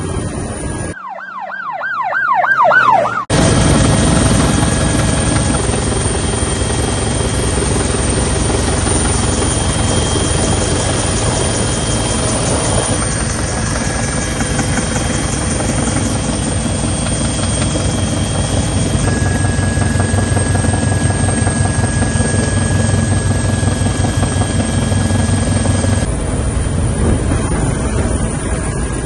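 A rescue helicopter's rotor and turbine running, heard from inside the cabin with the side door open: a fast, steady rotor beat under a faint high whine. About a second in, a short wavering whine rises for two seconds before the full helicopter noise cuts in.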